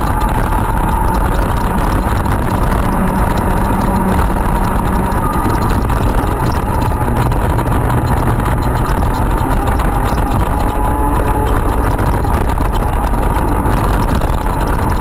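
Loud racing kart engine running continuously at high revs, its pitch climbing slowly several times as it accelerates.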